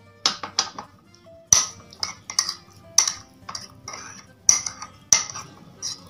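A metal spoon clinking repeatedly against the inside of a ceramic mug while stirring pasta in sauce: sharp, irregular clinks, roughly two a second. Faint background guitar music plays throughout.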